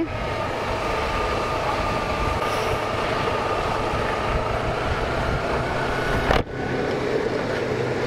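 Motorcycle riding at low speed: steady engine hum under wind and road noise on the microphone. The sound drops out briefly about six and a half seconds in, then carries on the same.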